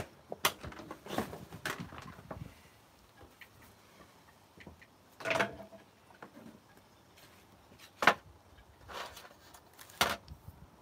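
Scattered light knocks, clicks and a short scrape as glass jars of melted wax and other items are handled and set down on a table, the sharpest click about eight seconds in.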